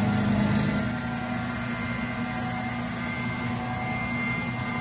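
A Chinese-made mill-drill running a light facing pass across a metal block clamped in its vise, a steady motor and cutter hum. The hum steps up slightly in pitch about a second in.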